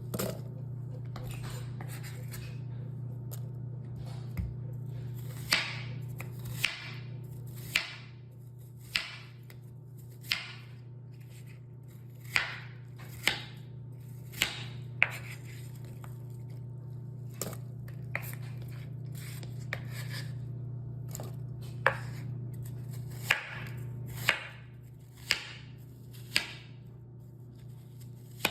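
Knife chopping on a cutting board: single sharp strokes at an uneven pace of about one a second, starting a few seconds in, over a steady low hum.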